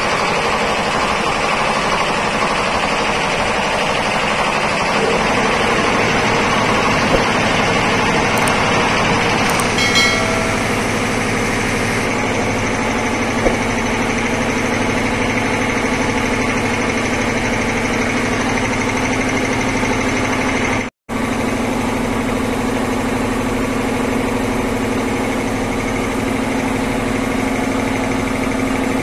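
Piston air compressors driven by electric motors, running with a loud, steady mechanical clatter and hum. The sound breaks off for an instant about two-thirds of the way through, then carries on.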